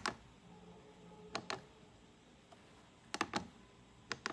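Buttons on a variable frequency drive's LCD keypad being pressed: short sharp clicks, mostly in pairs, in four small groups a second or two apart.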